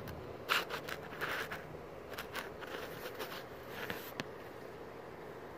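Irregular metallic clicks and scrapes from a ratchet wrench and socket on the drive-belt tensioner pulley bolt, worked to release the tensioner and slacken the ribbed belt.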